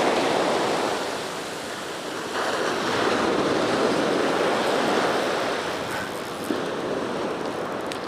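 Small shore-break waves washing up a sandy beach, a rush of foamy water that swells twice: loud at first, dipping, then surging again about two and a half seconds in before easing off.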